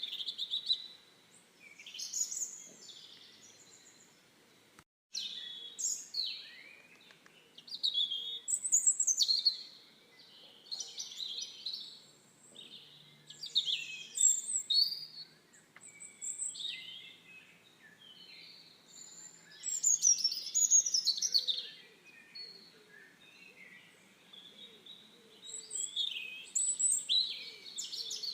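Birds singing: bursts of high, quick chirping phrases every few seconds, with a brief cut-out about five seconds in.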